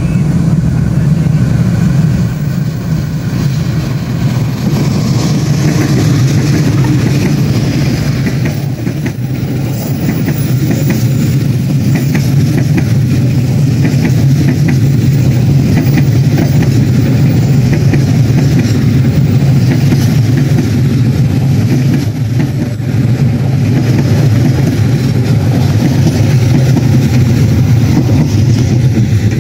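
A large vehicle engine running steadily, a loud, even low rumble that dips slightly about a third of the way through.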